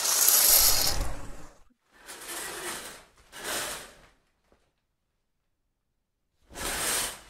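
A curtain being pulled along its rail in four separate pulls, the first the longest and loudest, the last coming after a pause of about two seconds.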